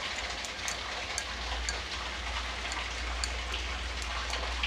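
Steady hiss of background noise with a low hum underneath and scattered faint ticks.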